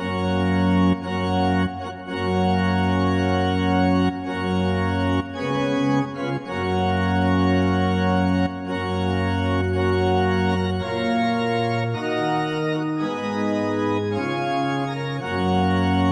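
Organ music: slow, sustained chords that change every second or two, opening a wedding song.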